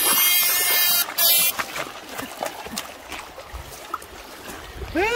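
Steady high-pitched electrical whine of an electrofishing rig's power unit, cutting out about a second and a half in. After it, shallow river water splashes and trickles, and a short cry rises and falls right at the end.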